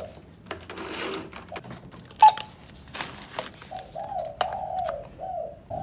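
Handling clicks and knocks as a canister vacuum cleaner's power cord is pulled out and its plug pushed into a wall socket, with one sharp click about two seconds in. From about four seconds in, a dove coos repeatedly in the background.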